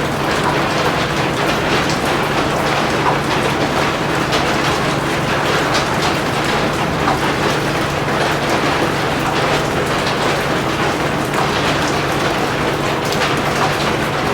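Heavy rain falling steadily, with the close patter of many separate drops over a steady low hum.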